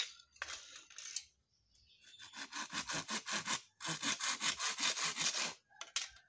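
Hand saw cutting a small piece of wood with quick back-and-forth strokes, about six a second. A few loose scrapes come first, the steady sawing starts about two seconds in, breaks briefly near four seconds and stops near the end.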